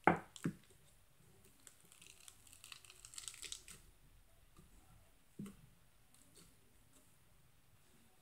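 Black slime being pressed by hand through a wire mesh grid: two soft knocks at the start, then a couple of seconds of fine crackling and clicking as the slime squeezes through the mesh, and another knock about five seconds in.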